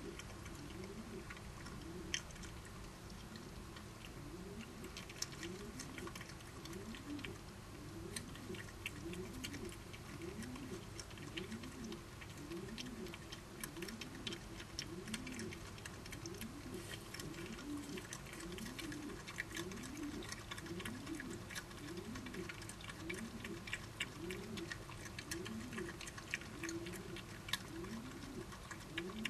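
Badgers eating, chewing and crunching their food in rapid small clicks that grow denser after the first several seconds. Underneath runs a low wavering hum that rises and falls about once a second.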